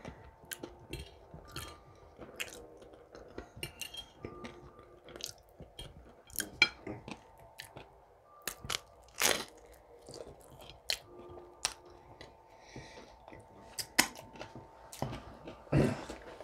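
A person chewing and crunching food, with many irregular wet clicks and crackles from the mouth.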